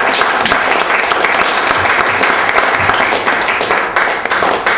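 Audience applauding, a dense, loud clatter of many hands clapping that thins slightly near the end.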